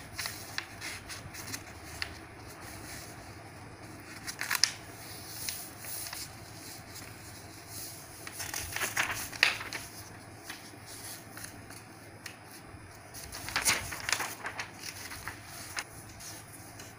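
A sheet of printer paper being folded and creased by hand on a wooden table: soft rustles and light clicks, with three louder spells of creasing about four, nine and fourteen seconds in.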